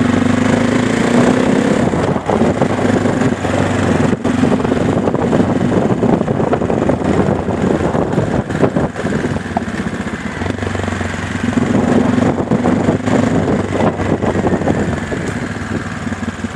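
Car on the move: a steady low engine drone with road and tyre noise.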